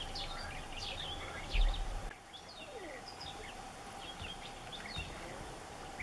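European bee-eaters calling and chattering: many short, overlapping calls, thickest in the first two seconds and sparser after. A low thump about a second and a half in is the loudest moment.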